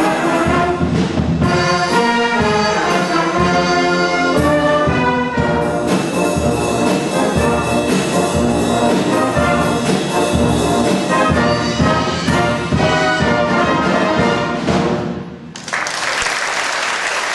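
Full brass band of cornets, horns, euphoniums, trombones and tubas playing the closing bars of a piece with a strong beat; the last chord dies away about fifteen seconds in. Audience applause breaks out right after.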